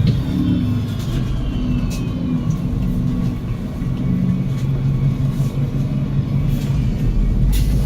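Cummins L9 diesel engine and Voith automatic gearbox of an Enviro500 MMC double-decker bus heard from inside while under way: a steady low engine drone, with a high drivetrain whine falling in pitch during the first second or two, and scattered light rattles and clicks from the body.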